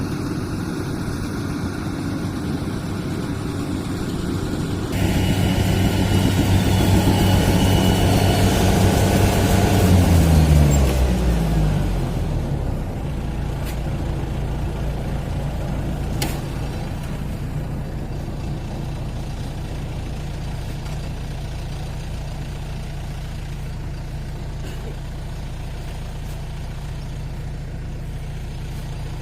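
Rice combine harvester's diesel engine running; about five seconds in it turns louder with a busier whir, then around ten seconds in its pitch falls as it winds down to a steady lower idle.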